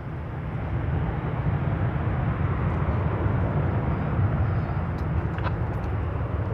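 An Airbus A321-231's IAE V2500 turbofans at takeoff thrust: a steady, heavy jet roar as the airliner rolls down the runway. It builds over the first second and then holds.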